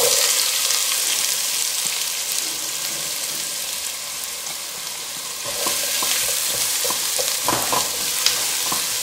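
Chopped onion dropped into hot olive oil, sizzling at once as it lands and frying with a steady hiss as it starts to sauté. From a little past halfway, a spatula stirs the onion, with a few scrapes and knocks against the pan.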